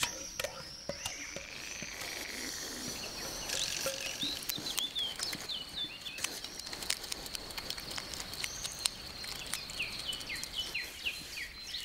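Garden nature ambience: birds giving series of short falling chirps from a few seconds in, over a steady high insect-like whine. Close by, many small clicks and rustles of a hedgehog snuffling and foraging in the soil and grass.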